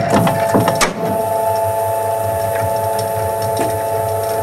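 Electric motor of a flatbed cylinder proof press running, turning its inking rollers: a steady hum with several even tones. A few knocks and clatter from the press in the first second.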